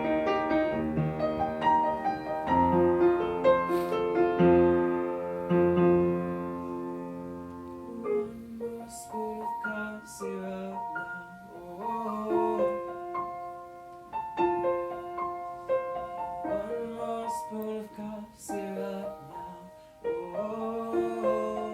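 Solo piano playing with no voice: full, held chords, then from about eight seconds in quieter, separate notes with short gaps between them.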